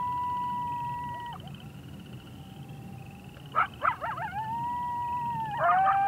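Coyote howling and yipping: a long held howl that breaks off about a second in, then a few sharp yips, a new howl that rises and holds, and another burst of yips into a lower held howl near the end.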